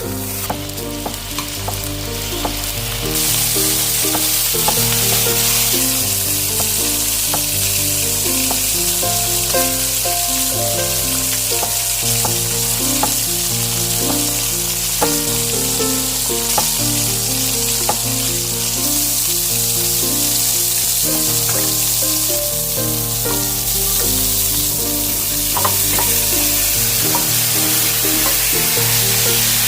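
Food frying in hot oil in a pan: a steady, loud sizzle that swells about three seconds in and then holds.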